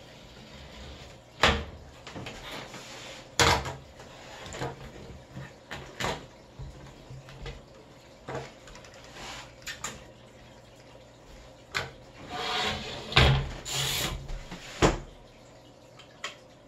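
Handling noise from a window screen frame and its mesh being worked on a wooden table: a handful of sharp knocks of the frame spread through, with a stretch of rustling and scraping near the end.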